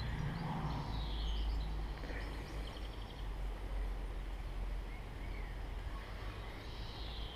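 Outdoor background: a low steady rumble with faint bird chirps about a second in and again near the end.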